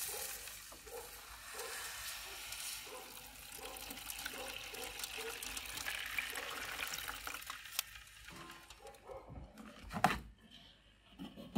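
Water poured into the dried-out, scorching water pan of a charcoal kettle grill, hissing and bubbling as it hits the burning drippings; it tails off about eight seconds in. A single knock follows about ten seconds in.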